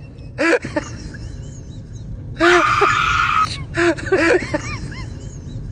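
A man's wordless vocal sounds, short groans and whimpers with a longer strained whine in the middle, as he hesitates over a hot pot on a gas stove. A steady low rumble runs underneath.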